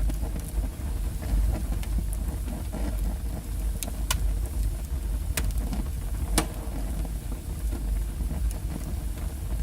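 Wood fire burning in a fireplace: a steady low rumble of flames with scattered sharp crackles and a few louder pops from the logs, the loudest in the middle.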